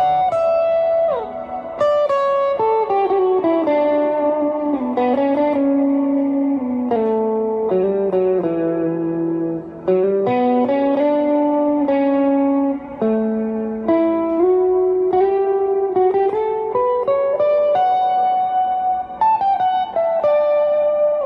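Electric guitar, a Fender Duo-Sonic HS, played through a Soul Food overdrive pedal. It plays a single-note melody of held notes joined by slides, with a falling slide about a second in.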